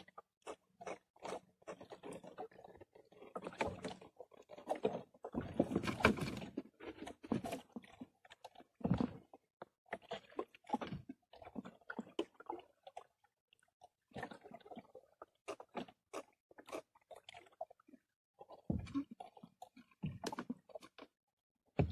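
Irregular knocks, taps and scrapes against the hull of a small wooden fishing boat as a fisherman works a handline, taking fish off the hook and handling line and bait. A few louder thumps are spread among the clicks.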